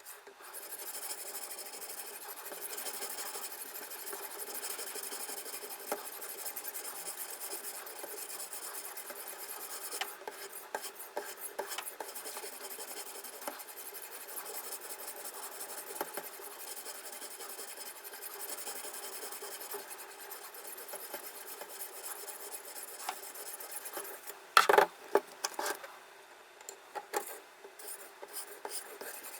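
Sharpening stone on a guided sharpening system's rod, stroked repeatedly along the steel edge of a knife blade: a continuous rasping scrape. Small clicks run through it, with a loud knock about three-quarters of the way through.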